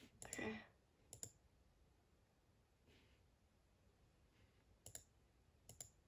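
Three quiet clicks of a laptop trackpad, about a second in and twice near the end, each a quick double tick of press and release.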